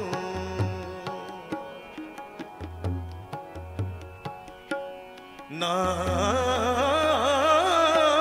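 Gurbani kirtan accompaniment: tabla strokes over held harmonium notes in an instrumental interlude, then the singing and harmonium melody come back in louder about six seconds in.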